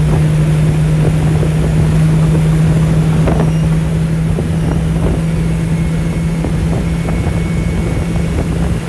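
Vehicle engine running at a steady speed with a constant low drone and rumble, as when cruising.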